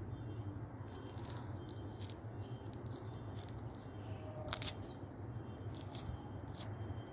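Mandarin orange being peeled by hand close up: soft tearing and crackling of the peel, with scattered sharp clicks, over a steady low hum.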